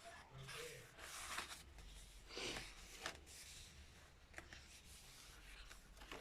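Quiet paper handling: pages of a handmade stitched journal being turned, with a couple of soft rustling swishes and a few light clicks.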